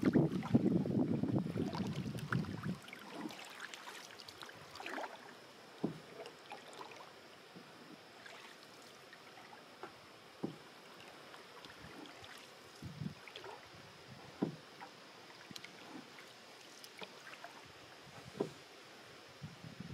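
Canoe being paddled on calm water: small splashes and drips from the paddle, with occasional light knocks, at irregular intervals. A louder rushing noise fills the first few seconds and then drops away.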